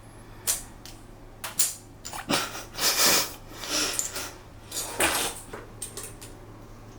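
Metal plumbing fittings clinking and scraping as the hex-head end of a bidet sprayer hose is handled and fitted onto a toilet T-valve: a run of sharp clicks and knocks with rustling, busiest in the middle.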